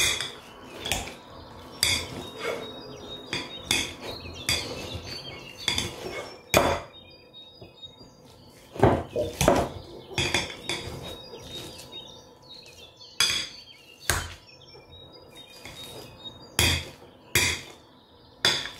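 Stainless-steel wire potato masher mashing boiled potatoes in a ceramic bowl. Its head knocks against the bottom of the bowl in sharp metallic clinks, irregularly, roughly one a second, with a few short pauses.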